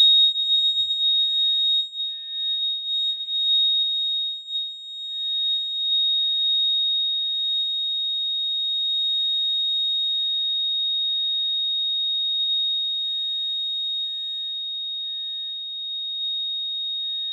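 Apartment fire alarm sounder going off for a pull-station test, holding one continuous high-pitched tone that starts suddenly.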